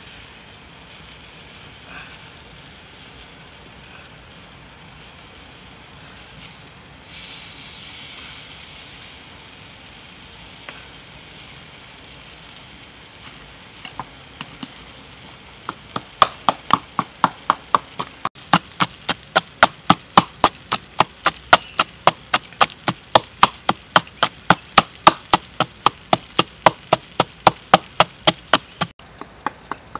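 Potato slices and cow heart sizzling quietly on a hot stone slab over a wood fire. After that comes a long run of sharp, even strokes, about three or four a second: a wooden pestle pounding chilies in a coconut-shell mortar. The pounding is the loudest sound.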